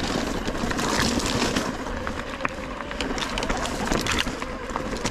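Mountain bike rolling over a rough, damp dirt trail: steady tyre noise with frequent small clicks and rattles from the bike.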